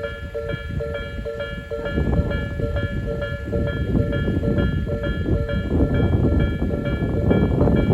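Railway level crossing's warning bell dinging in a fast steady repeat, over the rumble of a train passing on the rails; the rumble grows louder near the end.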